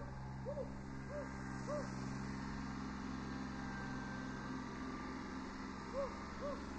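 Kubota B7100 HST compact tractor's three-cylinder diesel engine running steadily at a distance as the tractor drives across the lawn. Over it, a series of short pitched notes repeats about every half second, once near the start and again near the end.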